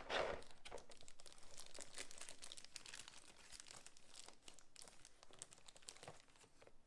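Thin clear plastic bag crinkling and rustling as hands handle it, a run of small crackles that is strongest at the start and grows sparser and quieter.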